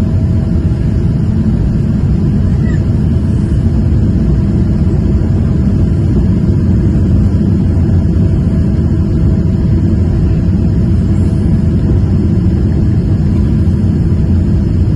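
Steady low rumble of an airliner's engines and rushing air, heard inside the passenger cabin during the descent to land.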